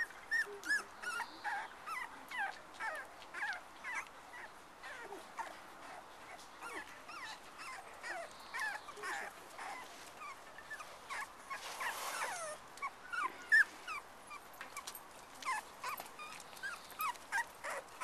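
Young cocker spaniel puppies whimpering and squeaking, a steady stream of short high-pitched cries, a few each second. About twelve seconds in there is a brief burst of noise.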